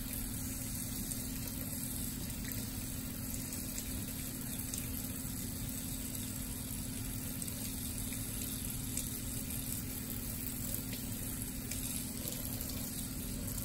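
Kitchen faucet running steadily, its stream pouring through a small mesh strainer of diamond-painting drills and splashing into a stainless steel sink as the drills are rinsed.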